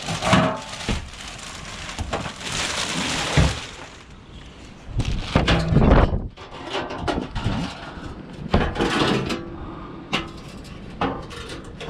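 Scrap being rummaged through and handled: a string of knocks and clatters, the loudest about five to six seconds in.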